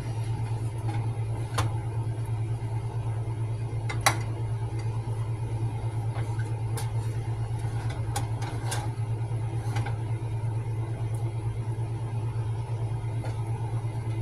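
A steady low mechanical hum, with a few sharp light clicks on top; the loudest click comes about four seconds in.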